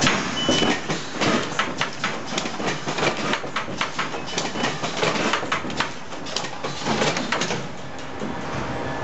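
Automatic seedling-tray transplanter machine running: a steady motor hum under a fast, irregular clatter of clicks and knocks from its mechanism.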